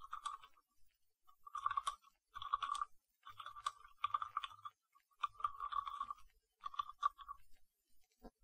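Computer keyboard typing in short bursts of keystrokes, with brief pauses between the bursts.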